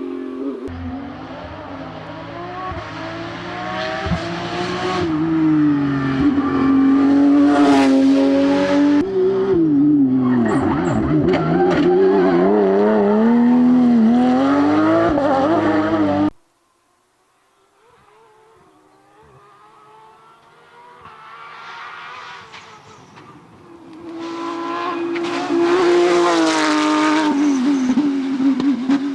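Porsche 992 rally car's flat-six engine revving hard and changing gear as it passes close by, the pitch rising and falling. It cuts off suddenly about halfway through. Then the car is heard again faint in the distance, growing to a second loud pass near the end.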